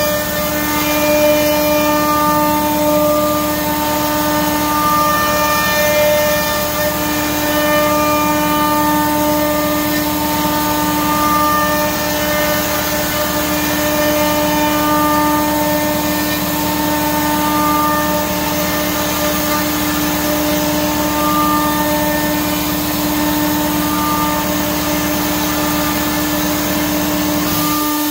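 CNC router spindle running steadily, its bit cutting into a wooden handrail wreath fitting turned on the 4th (rotary) axis, with a steady whine whose higher tones swell and fade every second or two as the bit moves along the cut. The low rumble underneath drops out right at the end.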